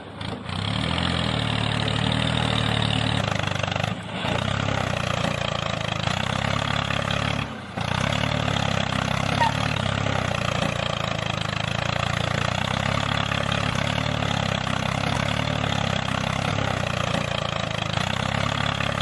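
Tractor engine running steadily, with brief dips about 4 s and 7.5 s in.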